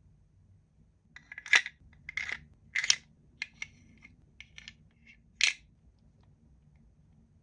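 Toy packaging being handled during unboxing: a run of sharp plastic crackles and clicks, about half a dozen, starting about a second in and ending with one more crackle near the middle.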